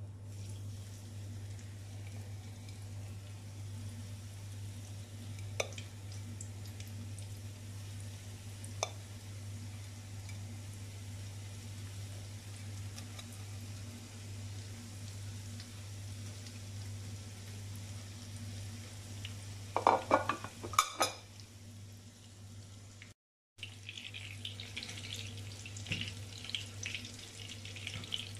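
Breaded chicken tenders frying in shallow oil in a frying pan, a light sizzle with crackling that gets busier near the end. There are a few clicks, and a loud cluster of knocks and clinks from the fork and plate about two-thirds of the way through, over a steady low hum.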